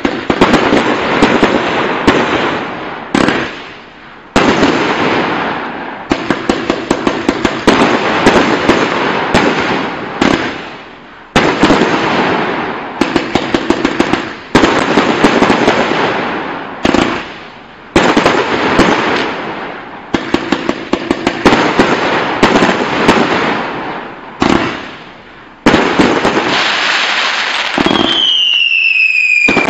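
A Gemstone Thunder Dragon 62-shot, 30 mm consumer firework barrage cake firing: rapid volleys of launch shots and crackling bursts in several runs that start abruptly and fade. Near the end there is a falling whistle.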